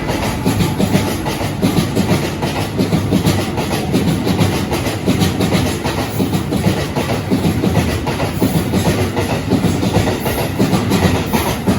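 Freight train wagons rolling past at speed, their wheels clattering over the rail joints in a rapid, continuous clickety-clack over a steady rumble.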